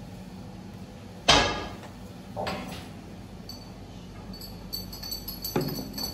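A kitchen knife cutting down through unbaked baklava and knocking against the bottom of a round aluminium baking tray: one sharp knock about a second in, a softer one a second later, and another near the end.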